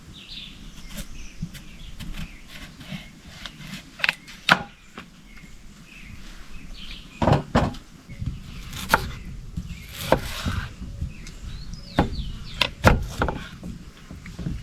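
Irregular sharp wooden knocks and clatter, a dozen or so over several seconds, with a scraping rustle near the middle, over faint birdsong.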